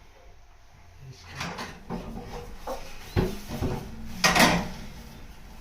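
Irregular knocks and scraping from wooden loft ladder parts being handled and shifted into place, with the loudest clunk a little over four seconds in.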